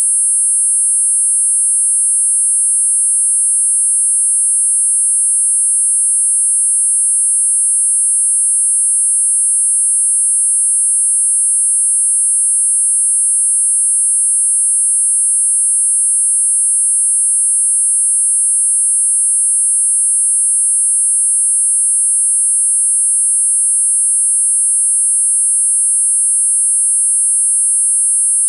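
Four steady high-pitched sine tones at 8.5, 9, 10 and 10.5 kHz sounding together as a constant electronic whine, a tinnitus masker.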